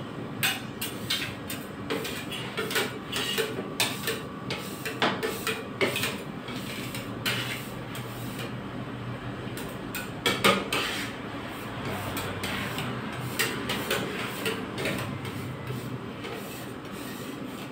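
Steel spatulas clinking and scraping on the frozen metal plate of a rolled ice cream machine, chopping and spreading the ice cream mix in quick irregular taps. A steady low hum of the machine's refrigeration compressor runs underneath.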